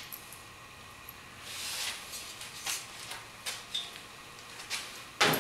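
A steel shelf of square tubing and angle iron being handled and set against a sheet-metal backsplash: light metal clicks and knocks, a short scrape about a second and a half in, and a louder clank right at the end.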